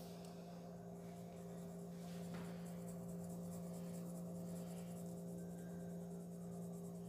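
Faint scratching of a pencil colouring on paper, over a steady low hum.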